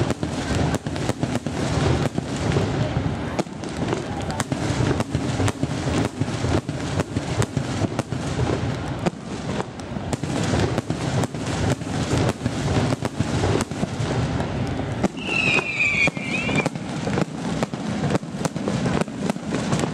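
Aerial firework shells bursting in rapid succession: a few sharp bangs each second over a continuous crackle and rumble. A brief high whistle cuts through about fifteen seconds in.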